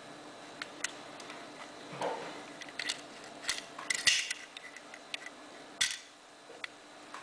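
Metal clicks and a scrape from a Belomo Chaika-II half-frame 35 mm camera being handled while its back cover is taken off. The clicks come irregularly: a brief scrape about two seconds in, the loudest cluster around four seconds, and one more sharp click near six seconds.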